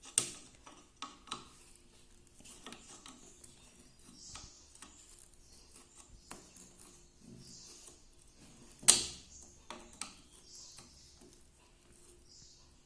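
Pliers at work tightening the mounting screw of a sewing machine's add-on motor: scattered metal clicks and light scraping, with one loud knock about two-thirds of the way in.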